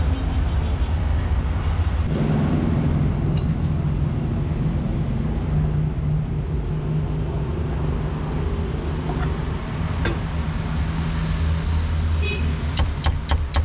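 Steady road-traffic noise from passing cars and motorbikes. Near the end, a cleaver starts chopping roast pork belly on a wooden chopping block in quick, regular strokes, about four or five a second.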